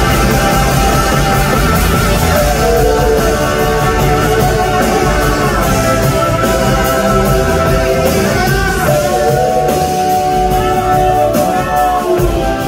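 Live rock band playing, with two electric guitars over drums and bass; a guitar line glides up and down in pitch about two-thirds of the way through.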